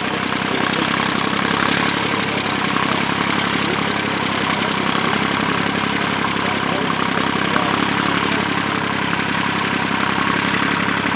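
Vintage Nuffield tractor's engine running steadily while pulling a plough through heavy ground.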